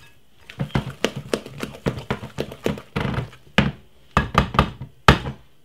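Wooden spoon beating thick cake batter in a glass mixing bowl: an irregular run of quick knocks and taps as the spoon strikes the bowl, starting about half a second in.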